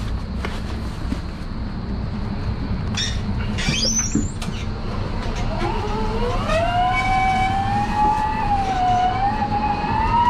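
Cardboard cases and metal load bars knocking and clattering as they are shifted inside a trailer, over a steady low hum. About six seconds in, a whining tone rises and then wavers up and down.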